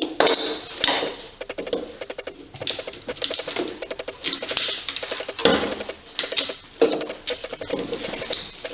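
Socket ratchet clicking in quick bursts as it is swung back and forth on the engine's oil drain plug, with a few knocks and clinks of metal tools.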